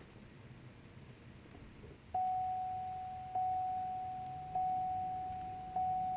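Chevrolet Corvette C6's in-car warning chime sounding after the ignition is switched to accessory mode. A single mid-pitched chime tone starts about two seconds in and repeats every 1.2 seconds or so, each strike fading slowly before the next.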